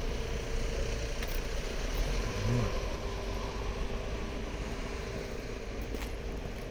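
Steady street traffic noise: a low rumble with a constant engine hum, easing off slightly partway through.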